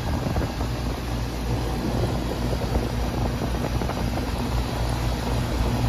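Air-conditioning condensing unit running: the compressor humming steadily with the condenser fan blowing. The unit is running with high head pressure because its condenser coil is badly clogged with dirt.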